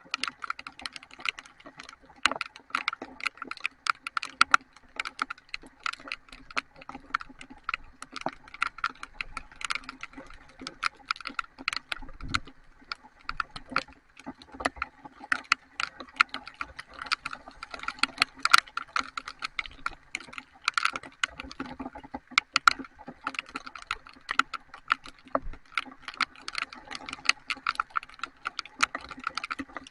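Heavy rain, with raindrops striking a hard surface close to the microphone in a dense, irregular run of sharp taps.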